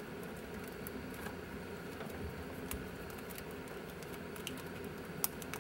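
Light scattered clicks and rustling of electrical wires being handled and bundled by hand under a dashboard, over a steady low hum.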